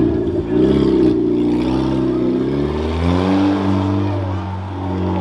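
Rough truck's engine revving hard on the dirt course, its pitch rising and falling several times as the throttle comes on and off, with a brief let-off just after the start.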